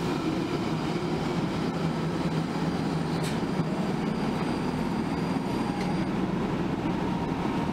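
ÖBB class 1142 electric locomotive and its double-deck coaches rolling slowly to a stop alongside the platform, a steady train running noise. A brief click sounds about three seconds in.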